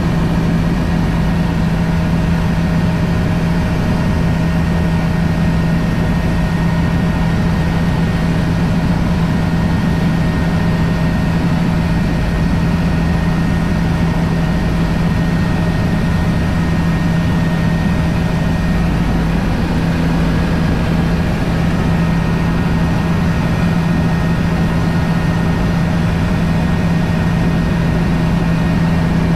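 Bell helicopter in steady cruise flight, heard from inside the cabin: a constant low hum of the rotor and engine with fainter steady whines above it, unchanging in pitch.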